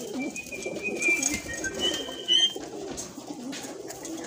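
A flock of Kasuri pigeons cooing together in a continuous low, wavering murmur. A few thin, high whistling notes sound over it in the first half.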